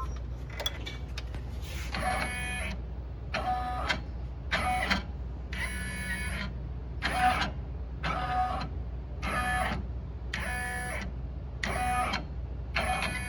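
Brother 1050X sewing machine squeaking in a regular rhythm, one short high-pitched squeak about every second and a quarter over a low hum. The squeak has only just started, and the owner wonders whether a bar needs lubricating.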